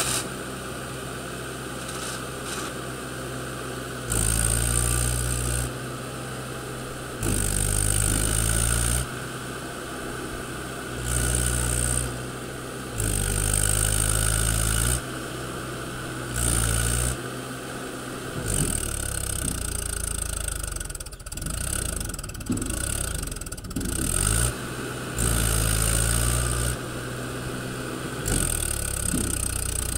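45 hp Mahindra tractor's diesel engine running and revved in loud bursts of one to two seconds, every few seconds, with steadier running between them.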